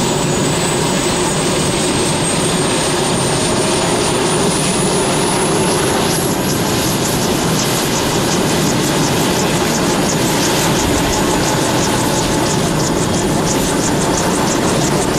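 AH-1S Cobra attack helicopters starting up on the ground: a high turbine whine rises in pitch for the first several seconds, then holds steady. From about halfway through, the rotor blades beat in a regular rhythm over the constant engine noise as the rotors come up to speed.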